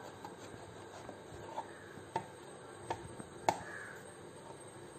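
A knife cutting through a peeled brinjal on a plastic plate: a handful of faint, sharp taps and clicks of the blade on the plate. The sharpest tap comes about three and a half seconds in.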